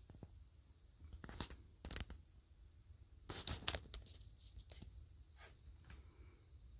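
Faint, scattered rustles and light clicks from hands handling things close to the microphone, over a low room hum.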